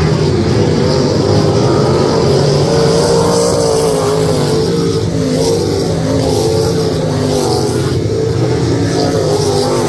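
Open-wheel midget race car engines running hard around a dirt oval, their pitch rising and falling as the cars go through the turns and down the straights.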